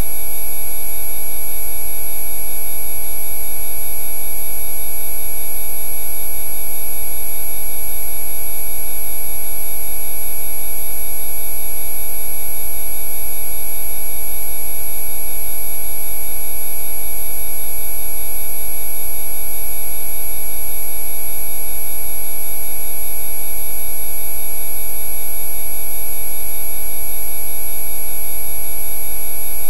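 Synthesized Rife 'healing frequency' tones: many steady electronic tones at different pitches sounding together over a low hum, held without change.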